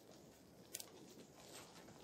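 Near silence with a faint hush, broken once about three quarters of a second in by a single faint crackle of burning twigs in a small stick fire.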